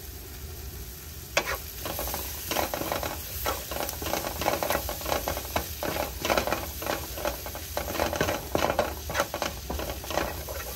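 Onion-tomato masala sizzling in a pan while it is stirred, the utensil scraping and knocking against the pan in quick, irregular strokes. The stirring starts about a second and a half in.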